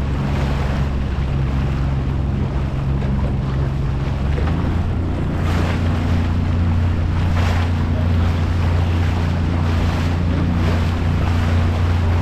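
A small motorboat's engine runs under way, its note shifting about halfway through and then running slightly louder. Water washes against the hull, and wind buffets the microphone.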